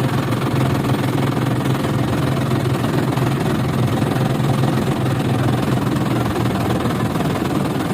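An engine running steadily at a constant speed, with an unchanging low hum.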